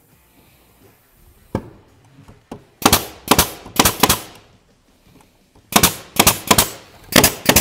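Nail gun driving nails through a backer block into pallet wood: one knock, then a rapid string of sharp shots about three seconds in and another from about six seconds in.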